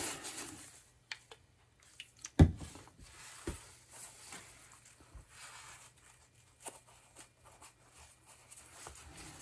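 Paper towel rustling and crumpling as small potentiometer parts are handled and wiped, with a sharp knock about two and a half seconds in and a few lighter clicks and taps.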